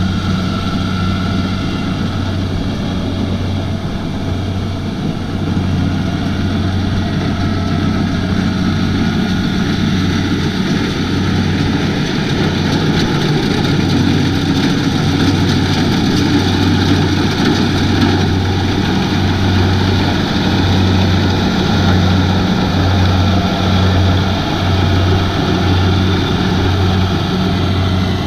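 Kubota DC-70 combine harvester running, its diesel engine a steady low drone under the broad noise of its working machinery. In the second half the drone pulses gently at a regular pace.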